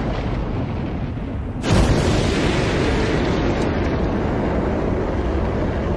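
A deep boom dying away, then about two seconds in the sudden, loud start of a rocket launch: rocket engines at liftoff giving a dense, steady rumble.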